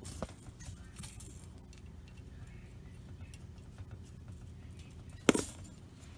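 Hands handling plastic dishwasher parts during reassembly: a few light clicks near the start and one sharp knock about five seconds in.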